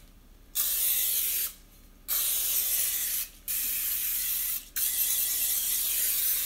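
Aerosol can of Carlini cooking spray hissing in four bursts with short breaks as it coats the inside of a metal cake pan.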